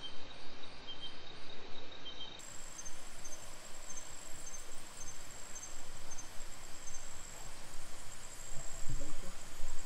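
Night insects calling: a steady high trill with short high chirps repeating two or three times a second, over a steady hiss.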